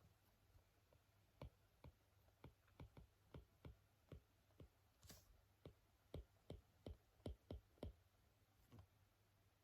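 A run of quiet, uneven tapping clicks, about two a second, beginning about a second and a half in, with one brief scratchy swipe in the middle.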